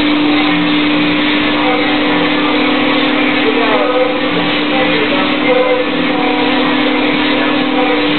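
Thermwood CNC router running as it carves ice: a steady hum under a dense hiss.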